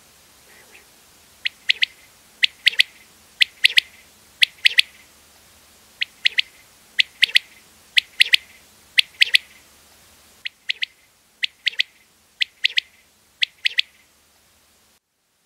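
Common quail calling: sharp three-note phrases, repeated about once a second, with a short break around ten seconds in.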